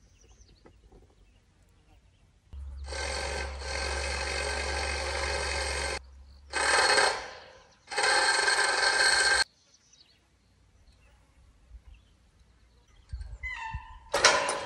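A steady, ringing mechanical whine comes in three bursts: first a long one of about three and a half seconds, then two shorter ones. A sharp knock follows near the end.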